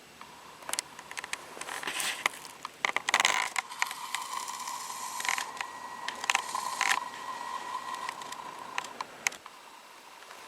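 Close handling noise: irregular clicks, scrapes and rustling, loudest about three seconds in, over a steady high thin whine.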